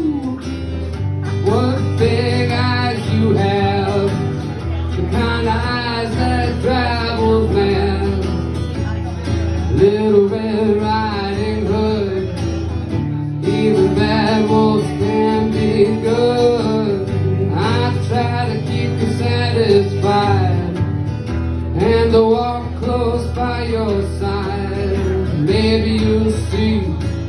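Acoustic guitar strummed, with a man's voice singing a wordless melody over it, holding and sliding between notes.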